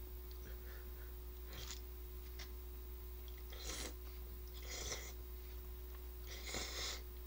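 Rice noodles being slurped off chopsticks: several short, faint slurps a second or so apart.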